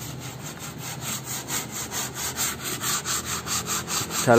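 Sandpaper rubbed by hand back and forth over the painted steel tailgate of a pick-up truck, about three strokes a second, growing louder. The panel is being sanded down for repainting.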